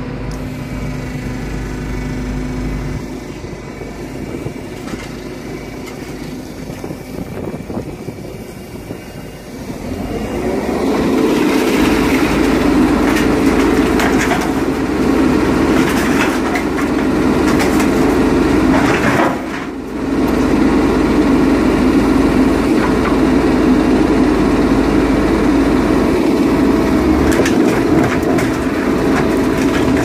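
Heavy hydraulic scrapyard machinery working a scrapped car into a car baler: a machine drone that grows much louder about a third of the way in and then holds steady, breaking off briefly about two-thirds through.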